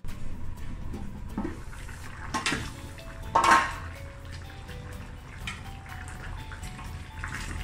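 Metal clatter as the aluminium lid comes off a pan of chicken stew, loudest a little over three seconds in. Then a metal ladle stirs and scrapes through the saucy stew in the pan.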